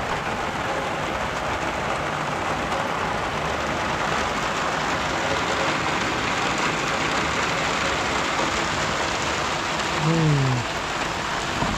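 Heavy sudden downpour: a steady rush of rain splashing on the ground and surfaces close by. About ten seconds in, a short call falls in pitch.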